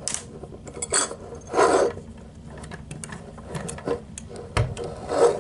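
Small clicks, taps and scrapes of plastic and diecast parts as the front-loader arms of a toy diecast garbage truck are worked by hand and a small plastic toy dumpster is handled, with a few louder scrapes among them.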